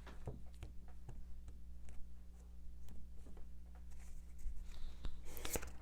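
Tarot cards being shuffled and handled: scattered light clicks and flicks, bunching together near the end, over a low steady hum.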